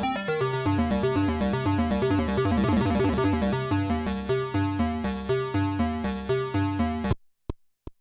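Cherry Audio DCO-106 software synthesizer (a Juno-106 emulation) playing its "Abstract Gamelan" preset as a fast, bell-like arpeggio of quickly stepping notes. The notes stop abruptly about seven seconds in, leaving a few fading delay echoes.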